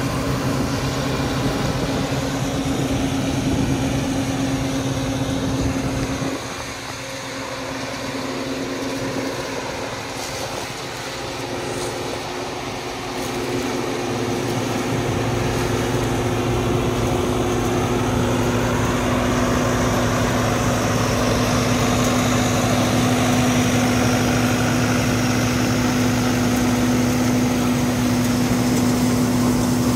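Peanut harvester running with its engine, a steady mechanical hum with a low drone. It drops quieter about six seconds in and comes back up after several seconds.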